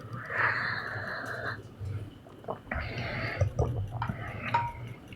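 Giant panda eating: two noisy, snorting breaths, with sharp crunching clicks of chewing between them, over a steady low hum.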